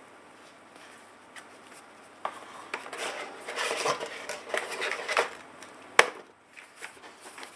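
Unboxing packaging being handled: rustling with irregular knocks and clicks starting about two seconds in, and one sharp click about six seconds in.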